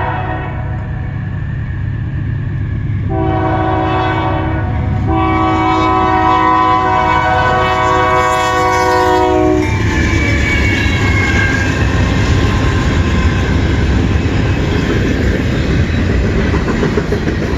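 A CN freight locomotive's multi-tone air horn sounds a short blast about three seconds in, then a longer one of about four and a half seconds, over the rumble of the diesel locomotive and train. After the horn stops, the rumble and the rattle of the rail cars grow louder as the train passes.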